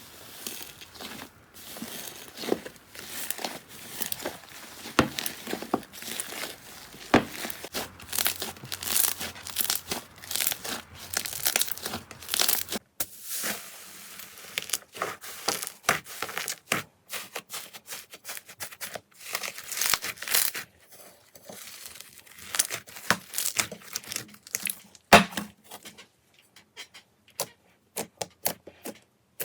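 Slime being pressed and stretched by hand, giving dense, crisp crackling and popping with tearing sounds. The sound thins out to separate clicks in the last few seconds.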